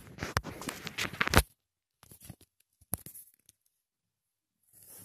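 Fabric rustling and handling noise in short bursts, with a few sharp knocks; the loudest knock comes about a second and a half in.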